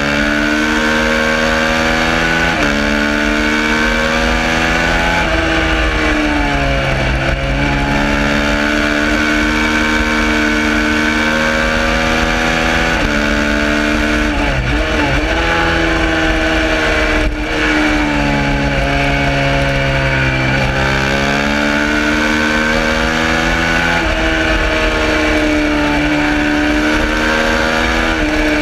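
Suzuki SV650's 90-degree V-twin engine at race pace, climbing in pitch through the gears with sharp steps at each upshift, then falling away under braking and pulling hard again, several times over.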